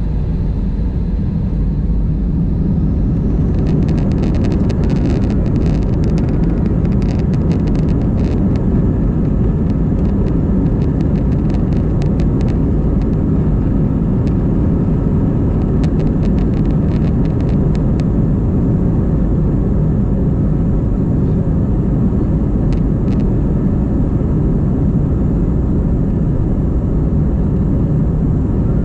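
Airbus A320-232 taking off, heard from inside the cabin: its two IAE V2500 engines at takeoff thrust give a loud, steady rumble. Rapid rattling clicks sound over it from a few seconds in until about two-thirds of the way through, then mostly stop.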